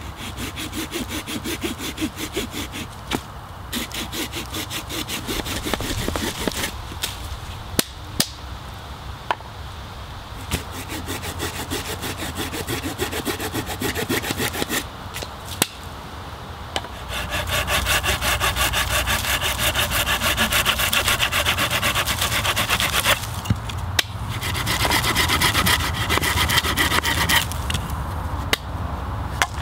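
A small hand saw cutting through a fallen deadwood branch in quick back-and-forth strokes, in several bouts with short pauses between cuts.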